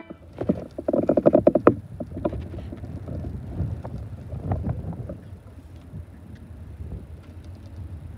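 Wind buffeting the microphone, loudest and crackling in the first two seconds, then settling to a low rumble with scattered clicks as a freight train approaches from a distance.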